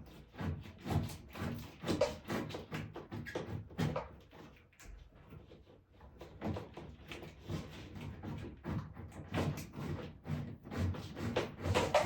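Irregular light knocks and clicks of hands working a stiff floor-heating cable wire loose, with a quieter pause about four seconds in.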